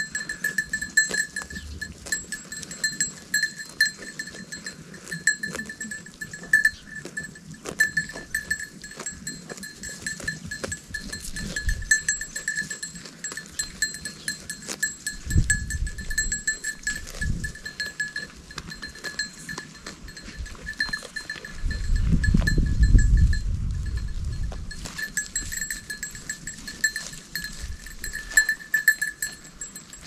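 Goats grazing right at the microphone: quick clicks of grass being torn and chewed, with a small bell jingling almost without pause. There is a low bump about halfway through and a longer low rumble around three quarters of the way in.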